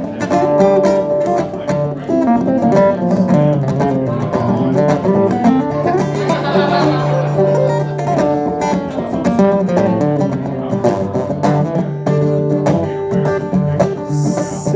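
Live guitar playing an instrumental break in a country-blues song, with quick picked notes over a steady low line and no singing.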